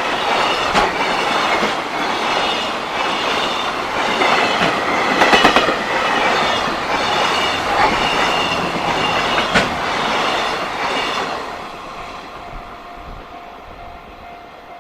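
Japanese freight train's wagons rolling past a level crossing, with a steady rumble and the odd clack of wheels over rail joints. The sound dies away after about twelve seconds as the train clears the crossing.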